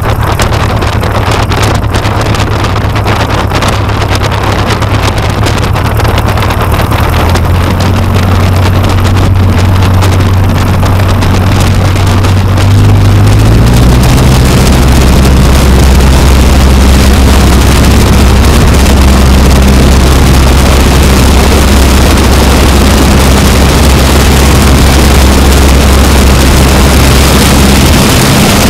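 Aeronca Chief's engine and propeller running at low taxi power, stepping up slightly about 7 seconds in, then opened up to full power about 13 seconds in for the takeoff roll, louder and steady from there. Wind hisses over the fuselage-mounted microphone as the plane gathers speed.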